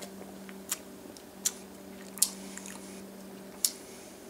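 Lip smacks and tongue clicks while tasting a sip of soda: four sharp smacks spread about a second apart, over a steady low hum.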